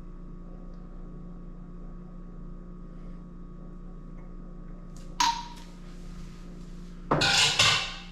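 Kitchen dishware being handled over a steady hum: one sharp clink with a short ring about five seconds in, then about a second of louder clattering near the end.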